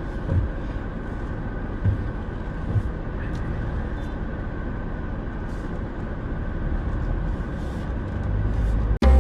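A car driving, with a steady low rumble of engine and road noise and a few low thumps in the first three seconds.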